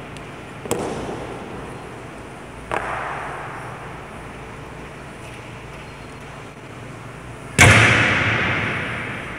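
Honor guard drill impacts on a marble floor, echoing through a large stone hall: two sharp knocks, then a much louder bang near the end that rings out for about two seconds.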